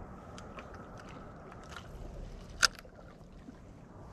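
Faint steady background noise with a few light clicks, and one sharp click about two and a half seconds in.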